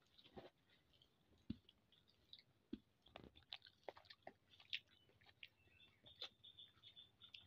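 Faint, irregular soft squishes and small clicks of fingers mashing and mixing cooked rice with leafy greens on a plate.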